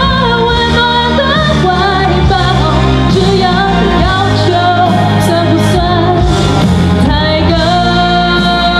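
A woman singing a pop song into a handheld microphone over instrumental accompaniment, her voice wavering through the melody and settling into a long held note near the end.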